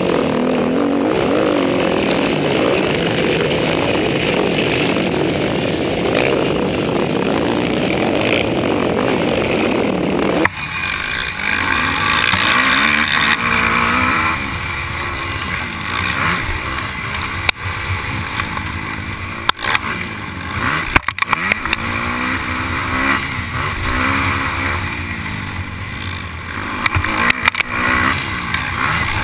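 Motocross bike engines racing, heard onboard one bike: at first the dense noise of the whole pack, then about ten seconds in the sound changes abruptly to mainly the bike's own engine revving up and down through the gears, with a few sharp knocks from the track.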